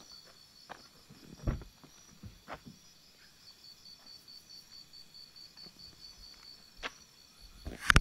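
Rainforest insects trilling steadily, a high, even, pulsing drone. A few faint knocks sound along the way, and a sharp click comes right at the end.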